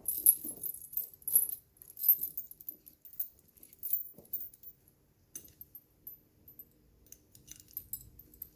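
Steel tire chains clinking and jangling as they are handled, with a run of sharp metallic clinks over the first four seconds or so and fewer, lighter clinks after that.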